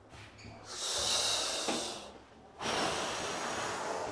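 Two long, breathy exhales close to the microphone, the second following a short pause after the first: a person breathing out audibly in admiration.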